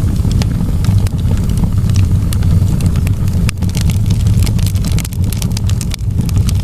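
Wood fire burning in a fireplace: a steady low rumble with frequent sharp crackles and pops, thickest a little past the middle.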